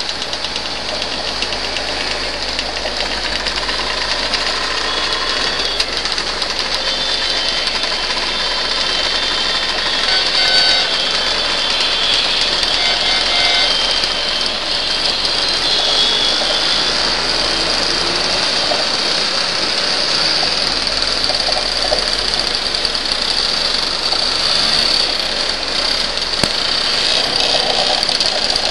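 A Vespa PX's two-stroke single-cylinder engine running steadily while riding, with a pack of other two-stroke Vespa and Lambretta scooters running alongside.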